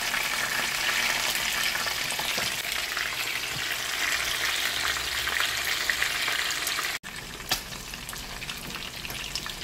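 Whole fish shallow-frying in hot oil in a nonstick pan, a steady sizzle as the fish brown. About seven seconds in the sound drops abruptly and carries on as a quieter sizzle.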